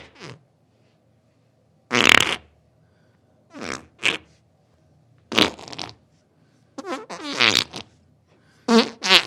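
A series of farts: about seven short separate blasts a second or so apart, the later ones longer with a buzzing pitched tone that wavers.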